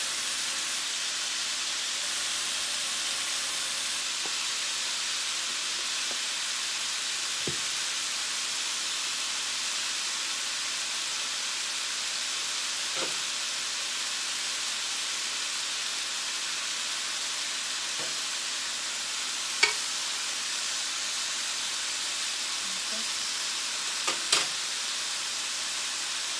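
Ribeye steaks sizzling steadily on the hot grill plate of an Oster electric reversible indoor grill. A few light clicks sound over the sizzle, the sharpest about three-quarters in and near the end.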